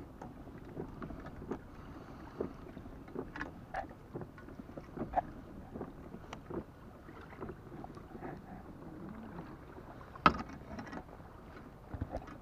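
Small clicks and knocks from a sailing kayak's tiller and fittings as the tiller is lifted over to the other side, over a low steady hiss of water and wind. One sharper knock about ten seconds in.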